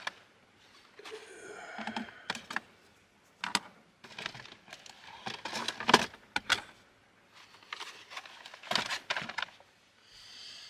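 Irregular clicks, knocks and rustling of small containers and kitchen gear being handled and set down while coffee is made, densest around the middle.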